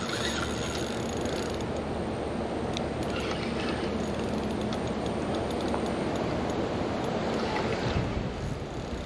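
Steady wind buffeting the microphone, with faint ticking and a low whir from a spinning reel while a hooked alligator pulls on the line.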